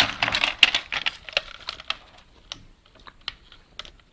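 Rapid clicking and clattering of a VHS cassette's plastic parts being handled and pulled apart. The clicks come thick for about the first two seconds, then thin out to scattered ticks.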